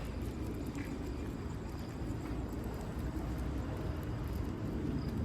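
Steady low rumbling outdoor noise, with faint scattered ticks and a faint high steady tone above it.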